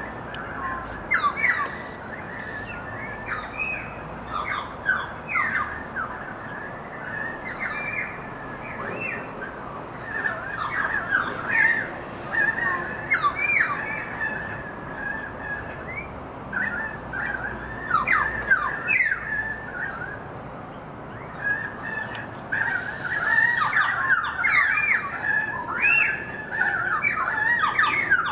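A family of currawongs calling together: many short, overlapping gliding calls in clusters, busiest toward the end.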